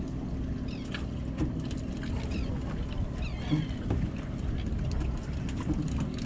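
Fishing boat's engine running steadily with a low hum, under wind and water noise, with a few short high chirps and light clicks scattered across it.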